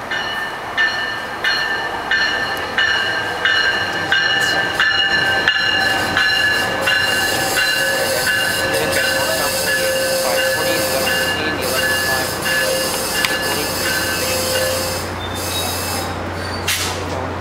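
Tri-Rail bilevel commuter train rolling into the station, its wheels clicking evenly over the rail joints while the brakes and wheels squeal in steady high tones as it slows. About ten seconds in, the low steady hum of the diesel locomotive joins, and there is a brief hiss near the end.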